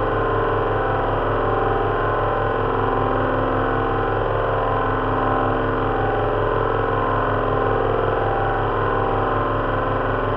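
Simulated drone of an Avro Lancaster's four Rolls-Royce Merlin V12 engines running steadily. It is built from loudspeaker recordings of a Merlin firing-order simulation, layered four times at slightly different speeds, with fan-heater hiss standing in for propeller noise. The four engines beat against each other in a slow, even throb.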